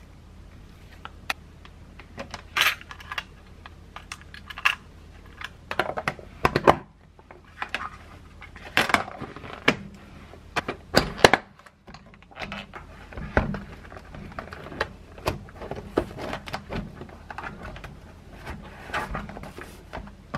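Lock&Lock plastic lunch containers being closed and handled on a countertop: lids pressed shut and locking clips snapped down, giving a scattered run of sharp clicks and knocks over a steady low hum.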